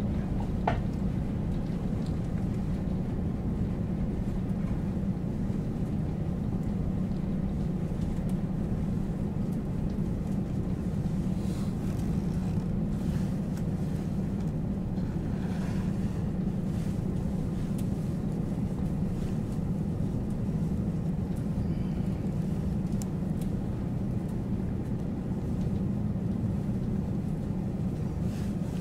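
KiHa 40 diesel railcar's engine idling, a steady low rumble that holds the same pitch throughout.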